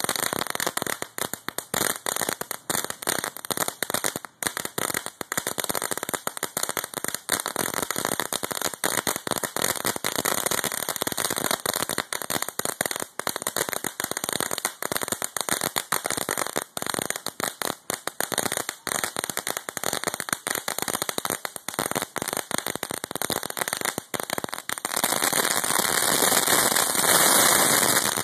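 Ground firework burning and throwing sparks, with dense rapid crackling. Near the end it flares into a louder, steadier hiss with a white spray of sparks, then cuts off.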